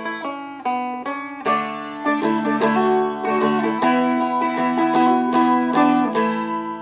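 Seagull Merlin M4, a four-string fretted dulcimer, picked through a slow gospel melody with low open strings held under the tune. The picking thickens about a second and a half in, and the last chord rings out and fades near the end.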